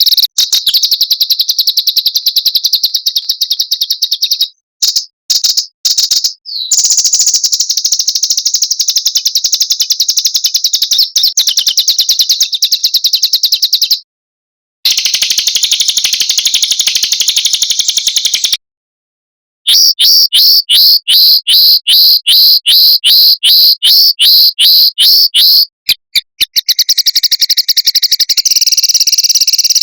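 Small songbirds singing rapid, high-pitched trills, edited together into a bird-song 'masteran' training track. It cuts to dead silence twice midway, then comes a run of sharp repeated notes at about two to three a second before fast trilling resumes.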